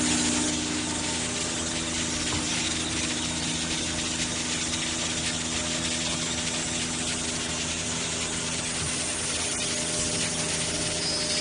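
A 5-axis woodworking CNC machining centre running with a steady hum and hiss and a few held tones, not yet cutting wood.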